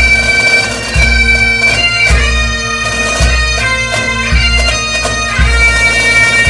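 Bagpipe music: a melody over a steady drone, with a deep drum hit about once a second.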